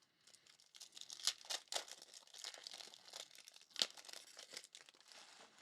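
Trading-card packs and cards being handled: an irregular run of soft crinkling and rustling of the foil wrapper and cards, with a couple of sharper crackles about a second in and near four seconds.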